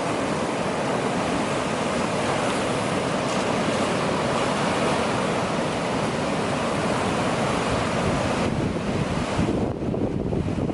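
Sea surf washing in steadily at a beach, with wind buffeting the microphone. The surf's hiss thins about eight seconds in as the gusts grow.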